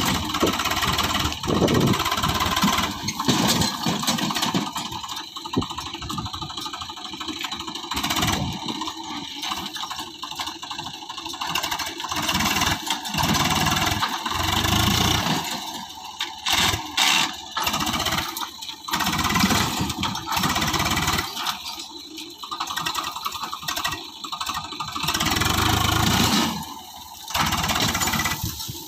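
Swaraj 735 FE tractor's three-cylinder diesel engine running under load, revving up and easing off again several times as the tractor pushes into thick brush. A few sharp cracks come about halfway through.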